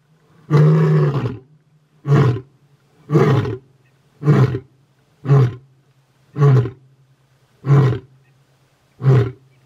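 Male lion roaring: one long roar, then seven shorter grunting roars about one a second, the grunting tail of a roaring bout.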